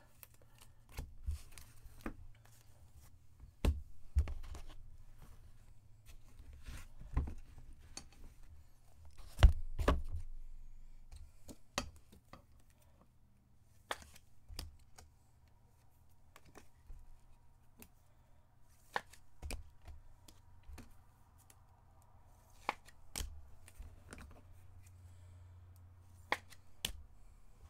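Sporadic clicks, taps and light rustling of cards and packaging being handled on a table, with a louder knock about nine seconds in, over a faint steady low hum.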